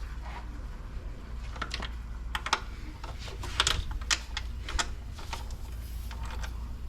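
Scattered sharp clicks and taps at uneven intervals, some in quick pairs, from hand tools and parts being handled during work on a car engine, over a steady low hum.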